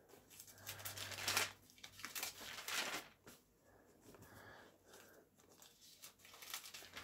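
Pages of a Bible being turned: a few papery rustles in the first three seconds, then fainter rustling as the page is found.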